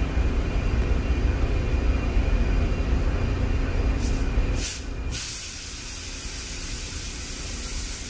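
A low rumble, then about four to five seconds in a few short spurts of hiss followed by a steady thin hiss: R404A refrigerant escaping at the charging-hose fitting on the cylinder valve as it is loosened with pliers.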